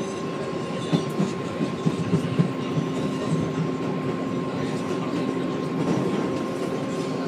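New York City Subway R188 car running along elevated track, heard from inside the car: a steady rumble with a thin steady whine. A quick run of knocks from the wheels comes between about one and two and a half seconds in.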